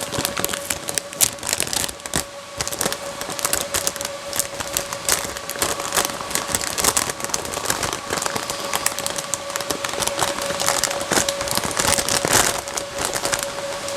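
Dense crinkling, rustling and clicking of handled packaging, irregular and continuous, over a steady faint tone.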